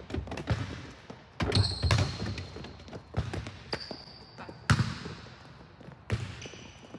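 Sneakers squeaking and feet thudding on a gym's sport-court floor as a volleyball player shuffles and plants through defensive footwork: a few sharp landings, three short high squeaks, and soft scuffing between them.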